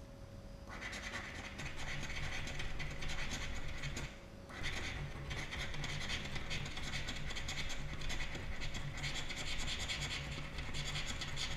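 Super Settimana 200 scratch card having its coating scratched off in quick, continuous scratching strokes, starting just under a second in, with a brief pause about four seconds in.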